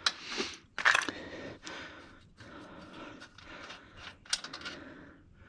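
Hand work on a 4L80E automatic transmission: a few sharp clicks and knocks, one at the start, one about a second in and one near the end, with scraping and rustling of parts and tools between them.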